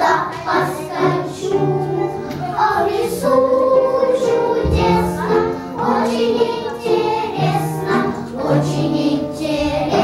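A group of young girls singing a children's song together over musical accompaniment, with held low notes beneath the voices.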